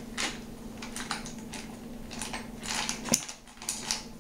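Light clicks and clinks of small copper rivets and washers being handled, several a second and irregular, over a steady low hum.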